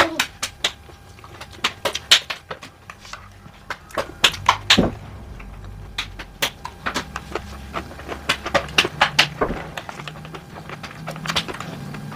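Disposable plastic fork and spoon clicking and scraping against a plastic takeout tray as food is picked up and eaten, with many sharp, irregular clicks.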